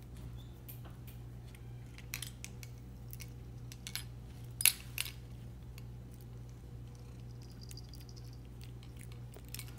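Keys on a keyring clinking and tapping as a cat rubs against them, with a few short clicks and two sharper ones about halfway through, over a steady low hum.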